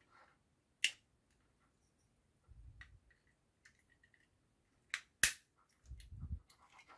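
Sharp plastic clicks from a plug-in solid-state relay being pressed and worked in its socket: three snaps, the loudest about five seconds in, with a couple of soft dull knocks from handling between them.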